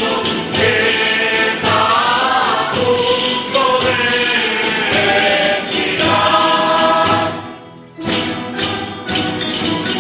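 A group of voices singing a traditional religious dawn song together, with a steady beat of percussion strokes under the melody. The singing stops about seven seconds in, and the percussion strokes return briefly near the end.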